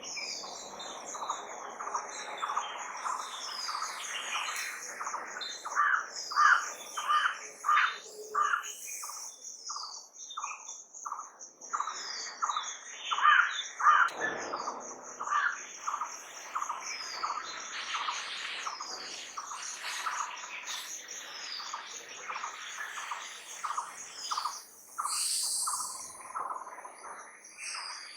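Birds chirping and calling, with short notes repeated several times a second and a high, fast trill that never stops.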